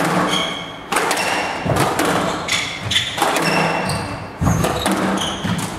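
Squash rally: the ball knocks sharply off rackets and the court walls about once a second, with short high squeaks of the players' shoes on the court floor between the shots.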